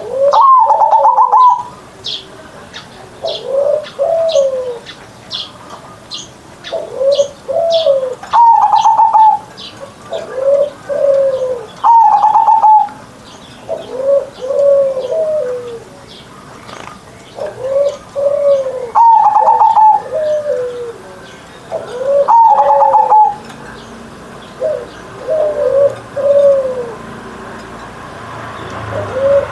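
Zebra dove (perkutut) cooing in its deep, rolling song: repeated phrases of low coos every few seconds, several opening with a higher, louder note. Short high chirps sound over it during the first several seconds.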